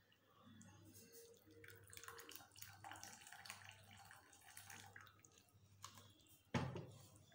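Faint pouring and dripping of gravy from a tilted aluminium pot into a glass bowl, with small scrapes and clicks of the pot. A single loud knock near the end.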